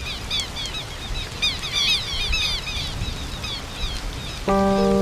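Many small birds chirping rapidly over a steady background hiss, the chirps thinning out after about three seconds. About four and a half seconds in, music with long held notes starts and is louder.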